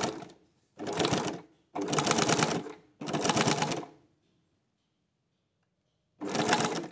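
Sewing machine with a ruffler foot attached, stitching fabric into even gathers in short runs: one run ends just after the start, three more brief runs follow, then after a pause of about two seconds one last short run near the end.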